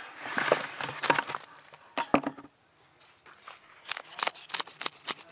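Knife scraping the scales off a rohu fish in quick, sharp strokes, about six or seven a second, from about four seconds in. Before that, a rustling shuffle with a few knocks as the fish are handled on sandy ground.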